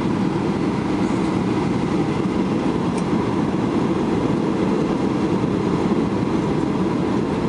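Steady cabin noise of a jet airliner during landing: engines running and air rushing past the fuselage, heard from inside the passenger cabin as a constant low rumble.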